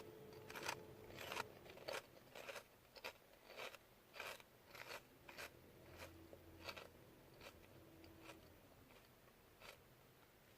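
Someone chewing crunchy Munchos potato crisps: a run of short crunches, roughly two a second, thinning out after about seven seconds.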